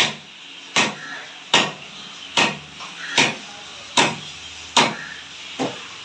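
Heavy curved cleaver chopping a trevally into pieces on a wooden log chopping block. There are eight sharp strikes, a little more than one a second, and the last one is lighter.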